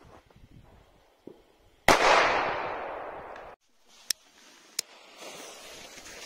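A firecracker goes off with a single sharp bang about two seconds in, its echo dying away over about a second and a half. After that come two sharp clicks of a torch lighter, then the lit fuse of the next small firecracker hisses and sputters near the end.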